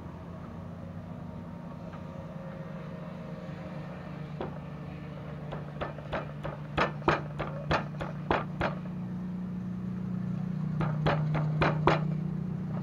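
Stone pestle pounding in a wooden mortar: a run of about a dozen sharp knocks at about four a second from about six seconds in, then a few more near the end. Under it a steady low hum grows louder.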